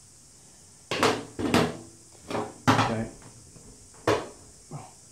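Metal knocks and rattles of an electric golf cart's frame and removed parts being handled, with a hand tool set against the frame: about five sharp knocks, each ringing briefly, the loudest about a second and nearly three seconds in.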